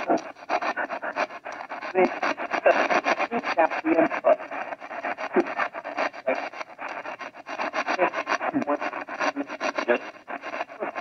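Radio modified as a spirit box, sweeping rapidly through AM/FM stations: static chopped many times a second, with brief clipped fragments of broadcast voices.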